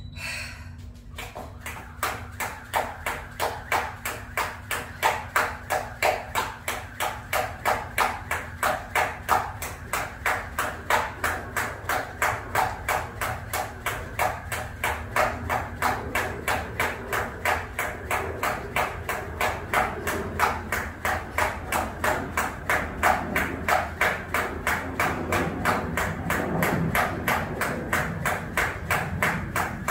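Jump rope skipping: the rope striking a jump mat on each turn, together with shoes landing, in a steady rhythm of about two beats a second. It starts a second or two in.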